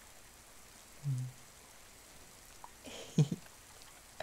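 Soft, steady rain falling, as a continuous background hiss. A man's voice breaks in with a brief low hum about a second in and a short, louder voiced sound around three seconds in.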